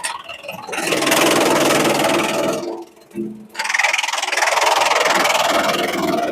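Bamboo shredder machine chewing through bamboo with a loud, dense crackling grind. It drops off sharply about three seconds in, then picks up again at full level.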